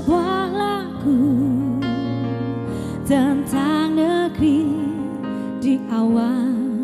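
A woman singing into a microphone with electronic keyboard accompaniment. She holds long notes with a wide vibrato over sustained keyboard chords.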